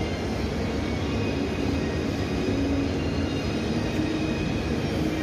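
Steady low rumble of restaurant room noise, with faint wavering tones in the background.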